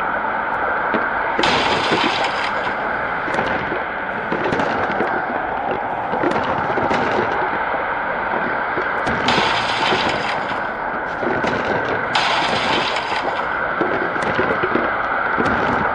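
Tornado sound effect: a constant rush of wind with many sharp cracks and pops throughout. Three times a brighter hiss swells for about a second.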